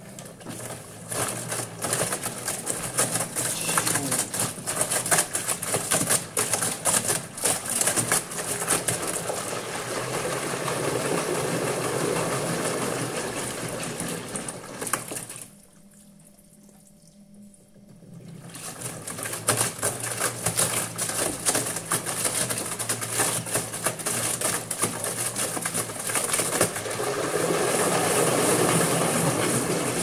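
An LG direct-drive front-loading washing machine turning its drum of wet towels: a steady motor hum under the sloshing, flopping and clicking of the tumbling load. About halfway through the drum stops for a few seconds, then starts turning again.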